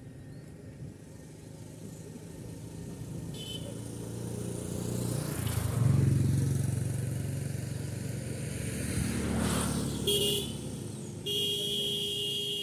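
A motor vehicle passing close, its engine noise building to a peak about six seconds in and then fading. Its horn sounds briefly about ten seconds in, then in a longer steady blast near the end.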